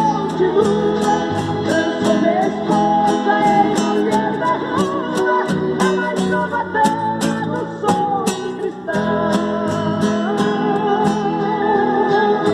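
Instrumental passage of a sertanejo song in E minor: violão (acoustic guitar) chords with a wavering lead melody line over evenly spaced percussion ticks.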